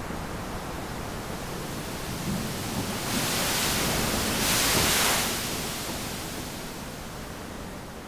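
Ocean surf on a sandy beach: a steady wash of waves, with one wave breaking and hissing up the shore from about three seconds in. It is loudest around five seconds, then dies away.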